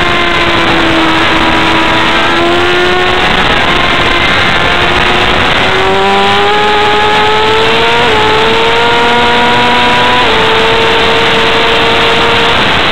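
Sport motorcycle engine heard on board at speed, its note climbing steadily from about six seconds in, with small steps in pitch around eight and ten seconds, under heavy wind rush.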